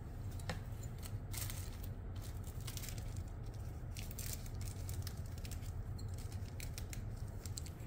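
Light, irregular clicks and rustles of plastic model-kit sprues and their plastic bags being handled, over a steady low hum.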